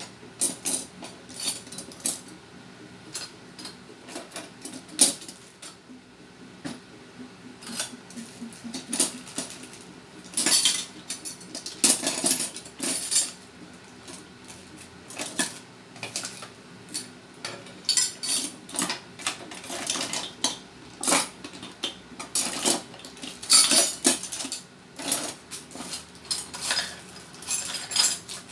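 Kitchen utensils and dishes clinking and clattering: irregular clusters of sharp metal clicks, knocks and rattles as cutlery is handled and knocked together.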